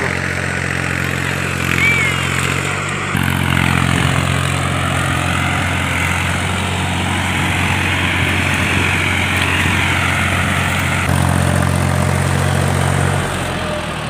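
Tractor engine running steadily with a low, even hum, its note shifting slightly about three seconds in and again near eleven seconds.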